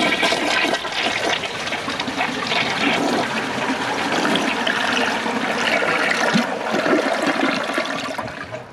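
A 2001 Kohler Wellworth Ingenium toilet flushing: a steady rush of water that tapers off near the end. The flush is a little slower than usual, which the owner puts down to a defective siphon jet.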